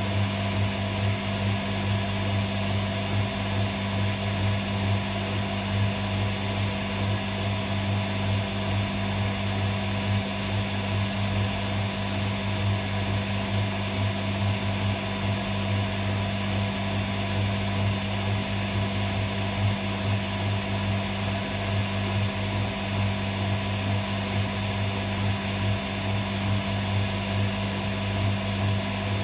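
Hotpoint WMA37 Aquarius washing machine running steadily, its motor giving an even hum that holds the same pitch throughout.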